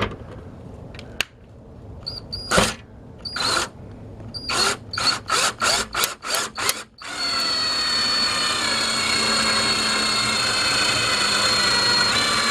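Power drill driving a license plate screw: a few short trigger bursts, then a quick run of brief stutters, then a steady run of about six seconds whose whine drops slightly in pitch before it stops near the end.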